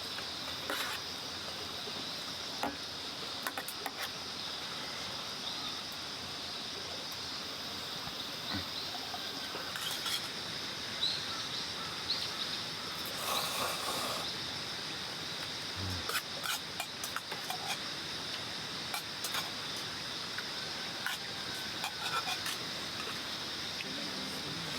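Insects, crickets by the sound of it, chirring steadily in a high, even chorus, with a few small clicks and a brief rustle about halfway through.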